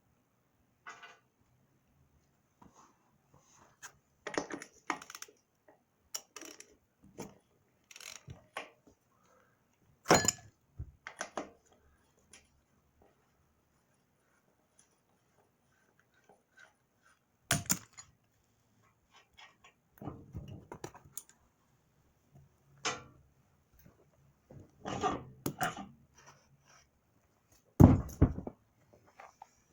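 Hand tools and metal parts clinking and knocking in scattered, irregular strikes, with three louder knocks spread through.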